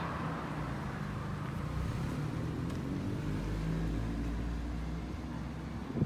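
Road traffic: a car's engine and tyres passing on the street, a low steady rumble that grows a little louder past the middle.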